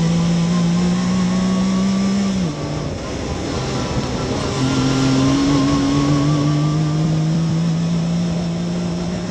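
Yamaha YXZ1000R side-by-side's inline three-cylinder engine running under load at trail speed, over a steady noise of tyres on the dirt trail. The engine note drops about two and a half seconds in, then climbs slowly as the vehicle speeds up.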